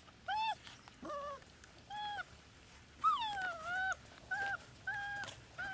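A four-and-a-half-week-old puppy whining in a string of about seven short, high whimpers, the one about three seconds in longer and sliding down in pitch.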